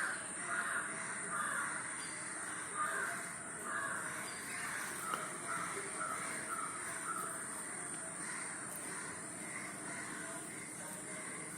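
Crows cawing over and over, a call roughly every half second, thinning out toward the end, with a steady high-pitched whine underneath.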